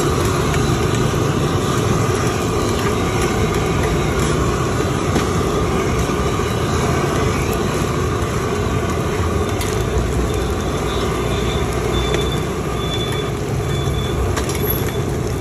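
Rice-flour cake cubes frying in oil on a wide flat pan, a steady sizzle over a constant low roar, with a few light taps of a metal spatula.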